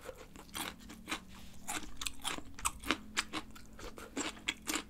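Close-up crunching and chewing of a cube of pickled radish, with many irregular crisp crunches several times a second.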